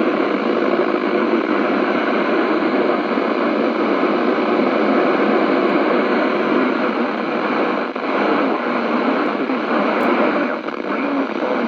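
Loud, steady static hiss from a weather radio receiver tuned to a NOAA Weather Radio VHF station, covering the broadcast voice: the sign of a weak, fading signal. Near the end the hiss dips and breaks up.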